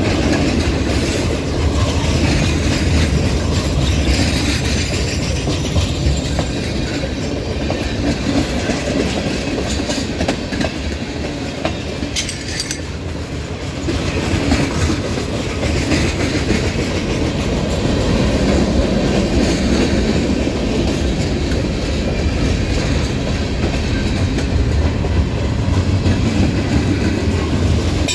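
Freight cars of a long mixed freight train rolling slowly past up a grade across a trestle bridge: a steady, loud rumble of steel wheels on the rails.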